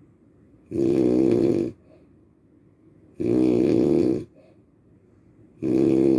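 Loud, rhythmic snoring: three long snores about two and a half seconds apart, each lasting about a second, the third starting near the end.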